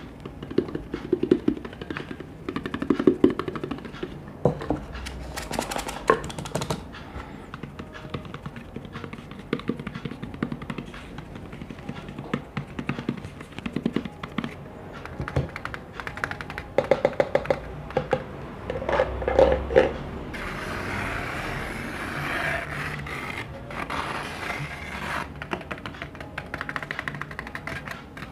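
Close-up ASMR tapping and handling of hard objects: irregular taps and clicks, with quick runs of rapid tapping past the middle. Then, from about two-thirds of the way in, several seconds of scratchy rustling.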